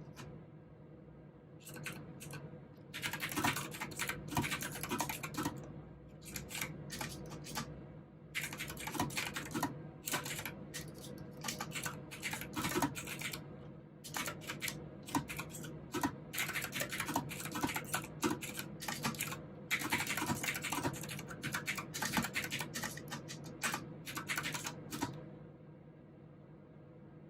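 Typing on a mechanical keyboard with clicky blue switches, in quick runs of keystrokes broken by short pauses. The typing starts about two seconds in and stops a couple of seconds before the end.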